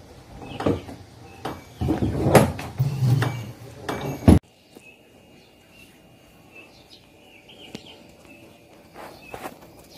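A door being swung and bumped, with clattering knocks and rustling for about four seconds that end in a sharp knock and stop abruptly. After that comes a quiet stretch with a few faint clicks.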